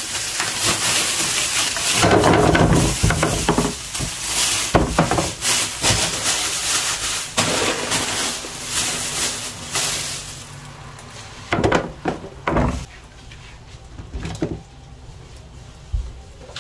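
Groceries being packed into a fridge by hand: bags of potatoes and sweet potatoes rustle and knock as they are stacked. The handling is dense and continuous at first, then thins to a few separate sharp knocks in the second half.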